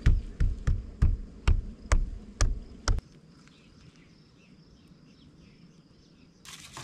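Hand pressing and patting a plastic window rain deflector onto a car door frame to seat its double-sided tape: about eight quick thumps over three seconds. After that, faint steady insect chirping.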